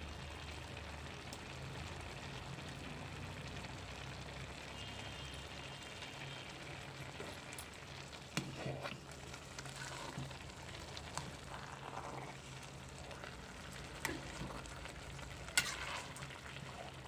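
Grated carrots simmering in milk in a large kadhai, a steady bubbling sizzle. A metal ladle scrapes and knocks against the pan a few times in the second half, the loudest knock near the end.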